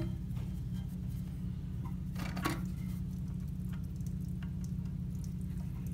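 A few light clicks and taps from plastic toilet fill valve parts being handled and fitted, with the sharpest click about two and a half seconds in, over a steady low hum.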